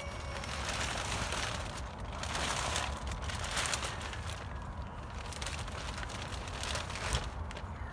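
Clear plastic greenhouse sheeting crinkling and rustling in irregular surges as it is pulled and handled, over a steady low rumble.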